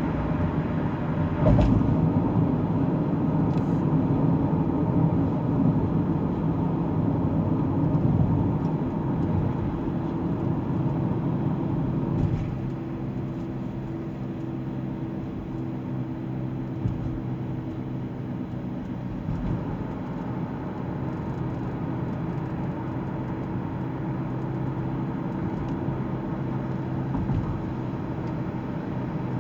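Car under way, with steady engine and road noise heard from inside the cabin. It is a little louder for the first twelve seconds or so, then settles slightly quieter.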